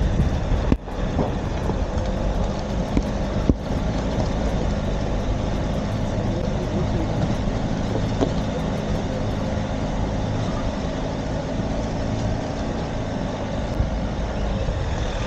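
All-wheel-drive car's engine pulling steadily up a steep off-road incline, with tyre and road noise. The sound cuts out briefly twice near the start.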